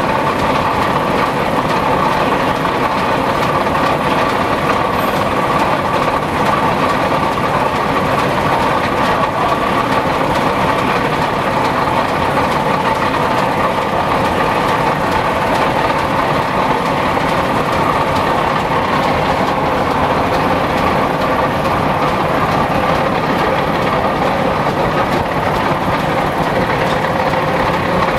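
Small steam engine running steadily, driving belt-driven sawmill machinery, with a hiss of escaping steam over a fast, even mechanical clatter and a steady hum.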